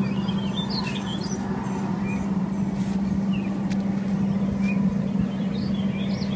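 A steady low hum runs throughout. Over it, small birds twitter with many short, quick chirps.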